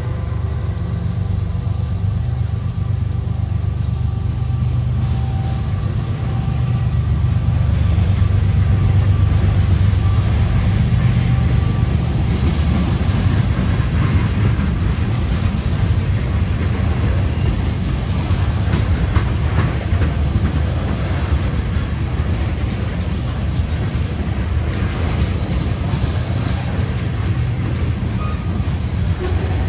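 Freight train rolling past: a Norfolk Southern diesel locomotive rumbling by, then a string of ethanol tank cars with a steady low rumble and irregular wheel clicks.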